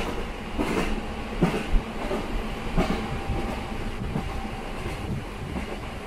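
A one-car diesel train running along the track, heard from inside the car beside an open window: a steady rumble of engine and wheels, with a few sharp clacks of the wheels over rail joints in the first three seconds.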